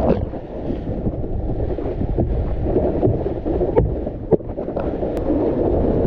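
Wind buffeting an action camera's microphone, mixed with the rush of water under a cable-towed wakeboard, and a few short knocks scattered through.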